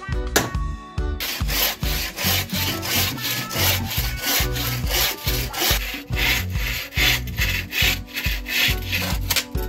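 Bow saw cutting through a timber plank by hand, in quick, even back-and-forth strokes that start about a second in.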